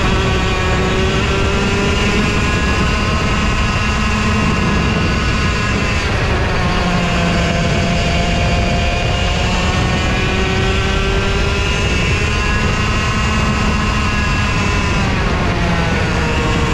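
Racing kart engine at high revs through a lap, recorded from the kart itself. The pitch drops off about six seconds in and again near the end as the driver lifts for corners, then climbs again under acceleration, over a steady rush of noise.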